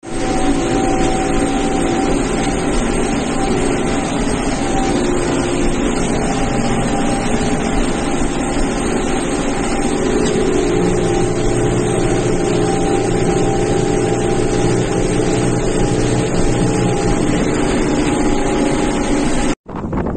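New Holland TD90 tractor's diesel engine running steadily under load, heard from inside the cab while pulling a cotton planter. The sound cuts off suddenly near the end.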